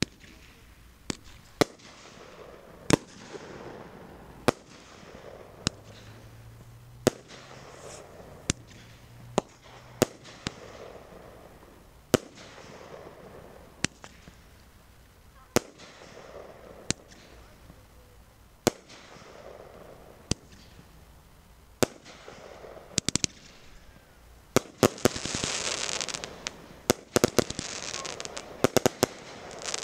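Consumer fireworks going off: single sharp bangs every second or two, then, from about 25 seconds in, a dense run of rapid cracks over a loud, steady hiss of sparks.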